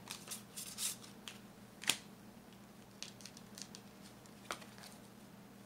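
Tarot cards being handled and laid out: papery slides and rustles in the first second, one sharp snap of a card just before two seconds in, then a few soft scattered ticks.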